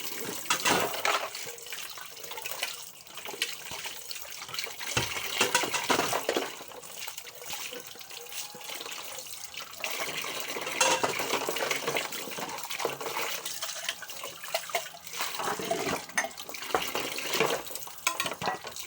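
Tap water running into a kitchen sink while dishes are washed by hand, with irregular knocks and clatter.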